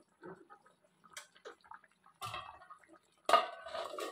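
Faint scattered clicks, then about three seconds in a stainless steel pot lid clanks loudly against the cooking pot as it is handled, with a brief metallic ring.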